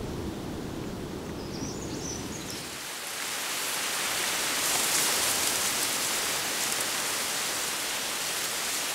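A low rumble dies away about three seconds in, giving way to a steady hiss of rain that grows a little louder.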